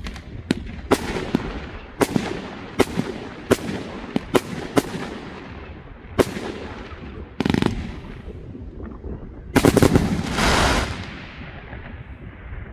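49-shot consumer firework cake firing: a quick string of sharp bangs, about ten in the first five seconds, then sparser shots and a louder cluster of bangs about ten seconds in.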